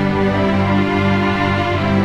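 Background music: slow, sustained chords with a deep bass.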